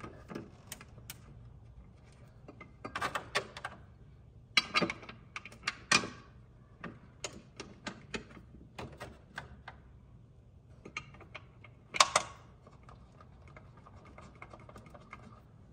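Hand ratchet clicking in short, irregular bursts as it drives screws into a metal hatch-support bracket, with a few sharper clicks and clinks; the loudest comes about twelve seconds in.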